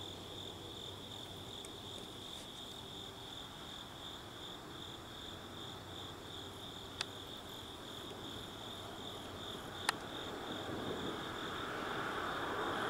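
Crickets chirping in a steady, rapidly pulsing high trill. There are two sharp clicks, about 7 and 10 seconds in. Near the end a rushing vehicle noise starts to rise.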